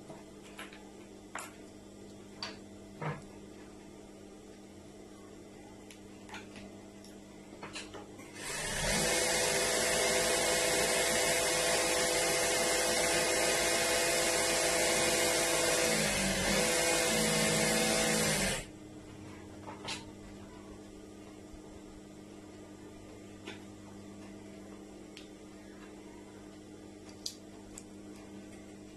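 A motor-driven machine runs steadily for about ten seconds, starting and stopping abruptly, with a brief dip in pitch shortly before it stops. Before and after it there are only a few light clicks over a faint steady hum.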